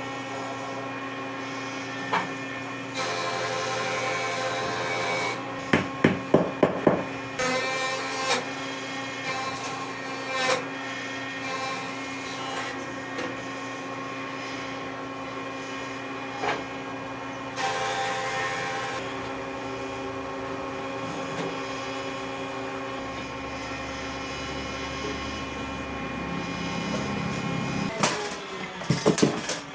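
Hammer striking wood: a quick run of about five blows several seconds in, a few single knocks later, and another cluster of blows near the end, over a steady machine hum.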